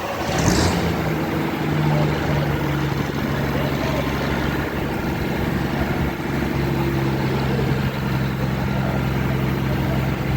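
An engine idling steadily, with a short noisy burst about half a second in.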